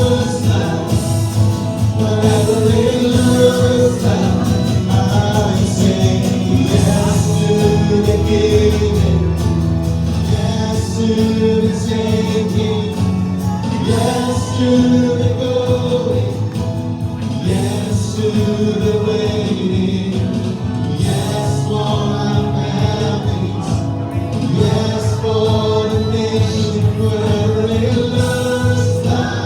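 Live church worship band playing a slow worship song, with singing in held notes over steady accompaniment.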